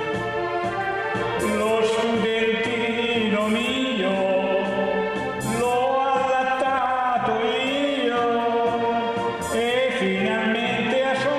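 A man singing into a microphone over keyboard accompaniment, holding long notes with vibrato.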